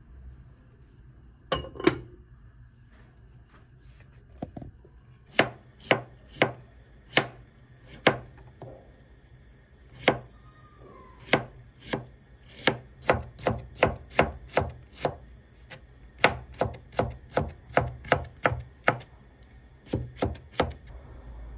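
Knife chopping vegetables on a cutting board: sharp knocks, some single and some in quick runs of two or three a second, with short pauses between.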